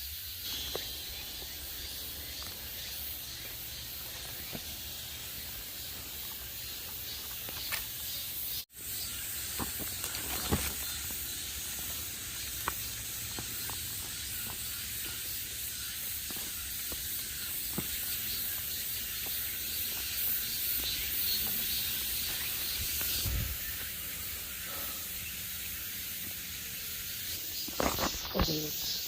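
Footsteps pushing through dense undergrowth off-trail, with scattered crackles and twig snaps, over a steady high hiss. The sound cuts out for an instant about nine seconds in.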